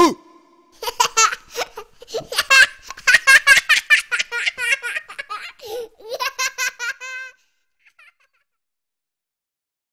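A child laughing in a long string of rapid, high-pitched giggles that ends about seven seconds in, after a short sudden sound with a falling pitch at the very start.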